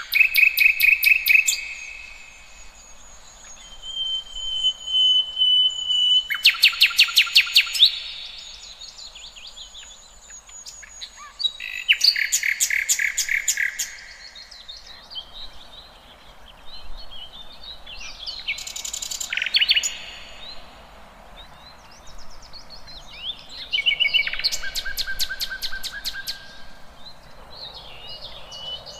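Songbirds singing: a loud, rapid trilled phrase comes again every five to six seconds, with softer whistles and chirps between the phrases.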